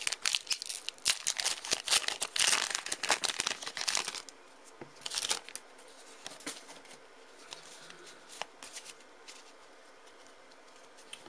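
A Pokémon trading card booster pack's foil wrapper crinkling loudly as it is torn open, for about four seconds. Then quieter handling of the cards, with a few soft clicks and rustles.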